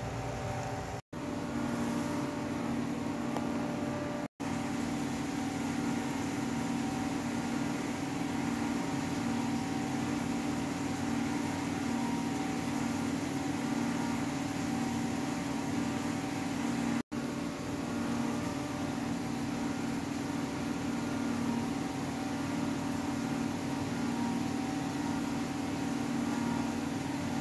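Steady machine hum with a low drone and a few fixed tones above it, cutting out briefly three times: about one second in, about four seconds in, and near seventeen seconds.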